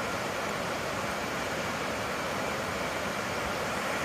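Waterfall's steady rushing roar of falling water, an even hiss with no breaks.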